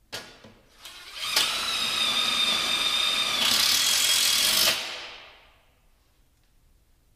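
Electric power drill running for about three and a half seconds, its whine changing tone partway through, then winding down. A short knock comes just before it starts.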